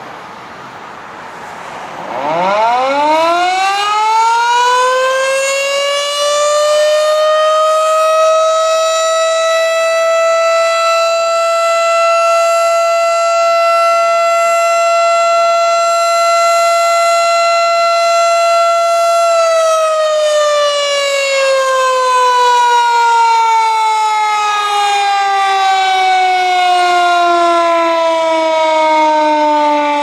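5 HP Darley Champion electromechanical siren starting up about two seconds in. It winds up in a quick rising glide to a steady single tone, holds it, then winds down about two-thirds of the way through in a long, slow falling glide.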